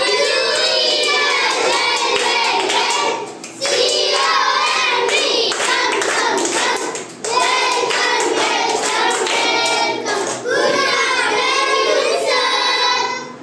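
A class of young children singing together in unison, with hand claps, in four phrases broken by short pauses.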